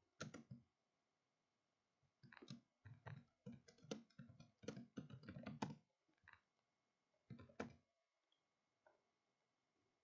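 Faint typing on a computer keyboard: a quick run of keystrokes lasting about three seconds, starting a couple of seconds in, then a short burst of a few more a little later.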